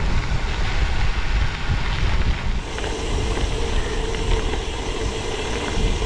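Wind buffeting the microphone of a camera on a moving bicycle, with the bike's 32mm road tyres rolling over gravel.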